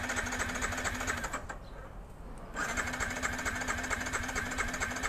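Yamaha XSR 155's 155 cc single-cylinder engine running with an even, rapid beat. It drops away for about a second after a second and a half, then runs again.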